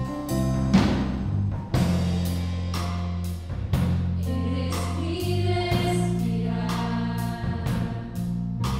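Live worship band playing: drum kit keeping a steady beat with cymbal strokes, guitar and keyboard with sustained bass notes, and a woman's lead voice singing into a microphone from about halfway through.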